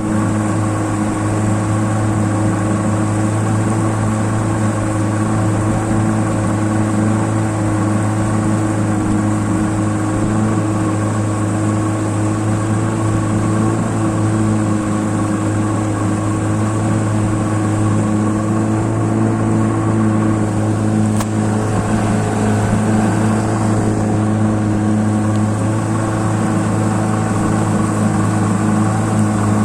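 Boat motor running at a steady speed under way, with a constant engine drone.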